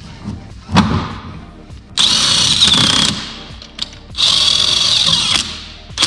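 A thump about a second in, then a cordless drill spinning wheel bolts into a car's hub in two steady runs of about a second each, with a high whine.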